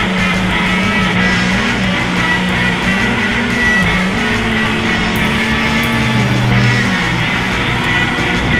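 Rock music with guitar, its low bass notes moving in steps.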